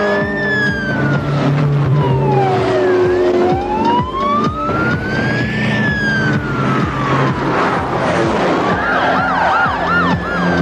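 Police siren wailing in slow, long rises and falls, breaking into a fast yelp near the end, over the running engines of chasing vehicles.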